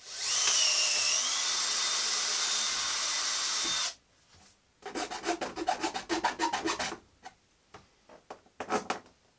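Cordless drill spinning up with a rising whine and drilling steadily into a board for about four seconds, then stopping suddenly. About a second later comes a rapid rasping rattle for about two seconds, followed by a few scattered knocks.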